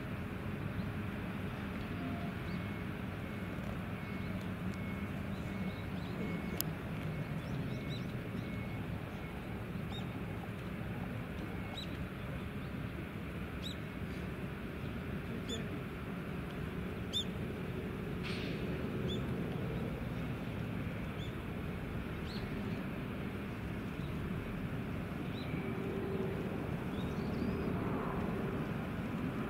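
Distant jet engines of the Mitsubishi X-2 Shinshin and a chase fighter in flight, a low steady drone that grows a little louder near the end. Small birds chirp now and then over it.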